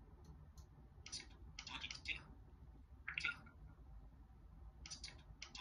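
Apple Watch playing a new watchOS 11 text tone through its small built-in speaker: a few brief, faint, high chirps with short gaps between them.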